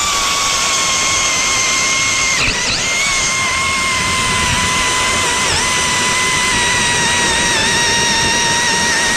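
Cordless drill-driver turning an ice auger through lake ice: a steady high motor whine, loaded, that slowly sags in pitch, with a brief dip about two and a half seconds in.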